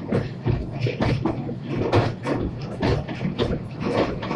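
Narrow-gauge train hauled by a Borsig steam locomotive, heard from an open carriage window while it runs. There is a quick, uneven clatter of about three knocks a second over a steady low rumble.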